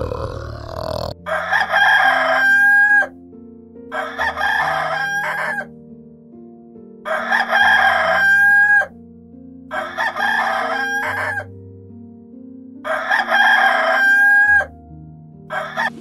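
Rooster crowing five times, about every three seconds, each crow ending in a held high note, over background music with slow steady notes. A low grunt fades out about a second in.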